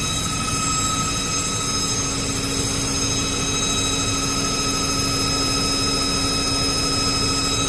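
Plate-making machine running steadily: a continuous even hum with a steady low tone and several faint high-pitched whines that do not change.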